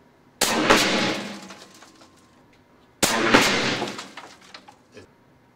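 Two shots from a Benjamin Bulldog .457 big-bore PCP air rifle firing slugs, about two and a half seconds apart. Each is a sharp report with a second crack a fraction of a second later, then rings out for about a second.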